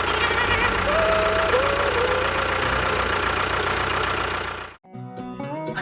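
A small engine or motor running steadily with a rhythmic low rumble. It cuts off abruptly near the end and plucked guitar music starts.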